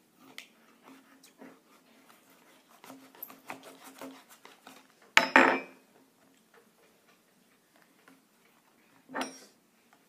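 Knife cutting and scraping at the tape and cardboard of a small boxed cable: scattered light clicks and scrapes, then a sharp click and a short tearing rasp about five seconds in, and another short rasp near the end.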